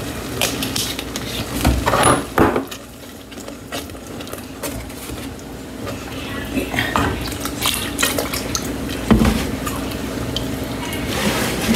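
A utensil stirring a pot of sauce on the stove, clinking and scraping against the pot at irregular intervals, over a steady low hum.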